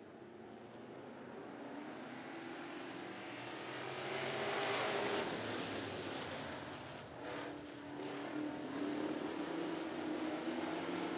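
A pack of Classics-division dirt-track race cars running at speed around the oval, their engines blending together. The sound swells to its loudest about four to five seconds in as the pack comes by, dips briefly near seven seconds, then holds steady.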